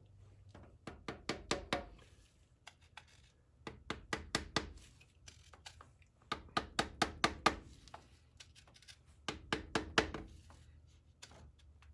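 Four bursts of quick, sharp knocks, about five or six a second: an oak stick being struck to drive a new front differential side seal into its bore on a 100 series Toyota Land Cruiser.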